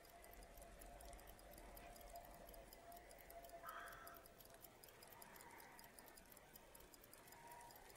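Faint, rapid ticking of a mechanical wristwatch, several ticks a second, over a faint steady tone.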